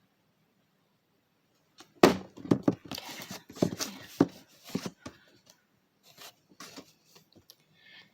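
Small objects being handled close to the microphone: after a short quiet, a burst of knocks, clicks and rustling, then a few lighter clicks and taps.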